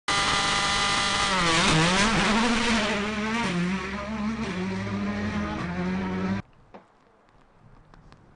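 A World Rally Car's turbocharged four-cylinder engine running hard, its pitch swinging up and down with the throttle and gear changes. It cuts off abruptly about six seconds in, leaving a faint background with a few clicks.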